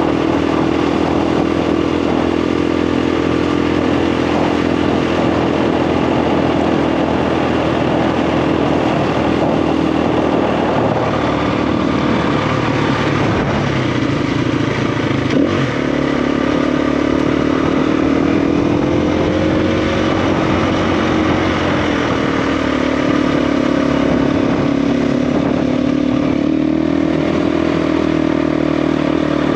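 KTM 350 EXC single-cylinder dirt bike engine running while being ridden, its pitch steady at first, then dipping and rising several times as the throttle changes. One sharp knock about halfway through.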